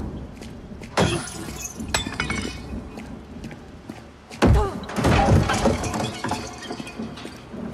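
Generated sound effect of two crashes, one about a second in and a louder one about four and a half seconds in, each followed by scattered rattling and clinking debris.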